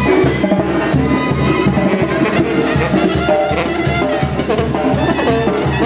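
Latin dance music with brass and a steady drum beat.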